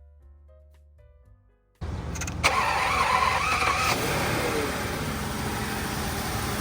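Soft piano music, then about two seconds in the 1995 BMW 750iL's V12 engine starts, running louder and uneven for about two seconds before settling into a steady idle. This is its first start after years of sitting following a flood.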